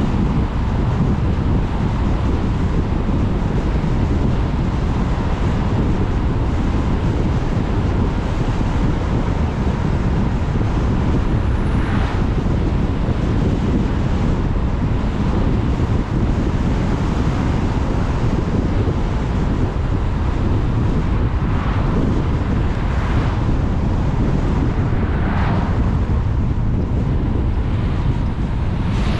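Steady wind buffeting the microphone of an electric motorbike riding at road speed, a dense low rushing noise with no engine sound. A few short swells of higher hiss rise and fade about halfway through and again toward the end.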